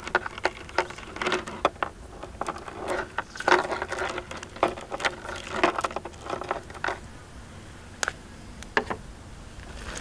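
A galvanized steel chain wrapped in electrical tape being handled, its links knocking together in a run of short clicks that thins out after about seven seconds. The tape is there to stop the chain clinking when it is used as a drag anchor.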